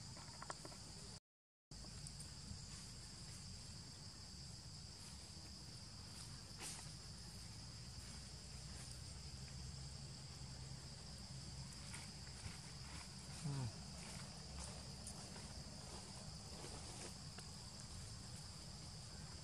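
Faint steady insect drone, typical of crickets, with scattered soft clicks and rustles from macaques picking through fruit and dry leaves. A short low sound comes about two-thirds of the way through, and the audio drops out for a moment about a second in.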